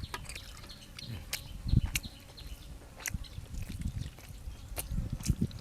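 Close-up eating sounds: wet chewing and slurping of chicken soup and rice noodles, with scattered sharp clicks.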